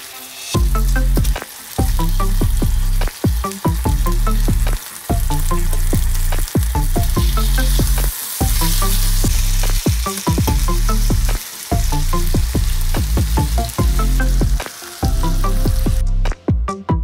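Marinated pork belly sizzling in a frying pan, a dense crackling hiss, with background music with a steady beat. The sizzling stops about a second before the end, leaving only the music.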